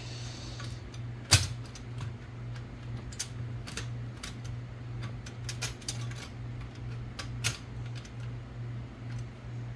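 Manual typewriter mechanism clicking irregularly as it is worked by hand, with one sharp, louder clack about a second and a half in. A steady low hum runs underneath.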